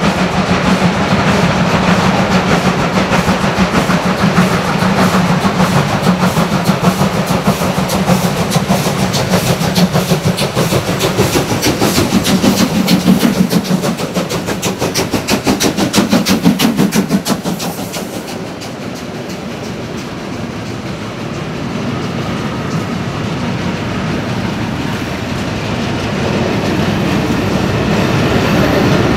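DR class 52 two-cylinder 2-10-0 steam locomotive 52 1360 working hard with rapid, loud exhaust beats as it approaches and passes close by. About 18 seconds in the beats fall away and a string of hopper wagons rolls past with steady wheel-on-rail noise that grows louder near the end.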